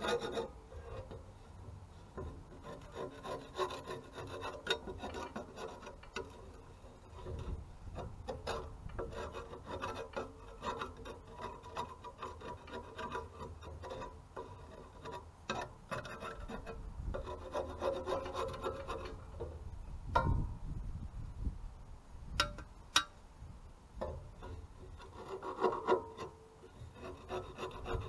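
Metal suspension parts being scrubbed clean by hand: repeated rough scraping strokes, with a few sharp knocks a little after twenty seconds in.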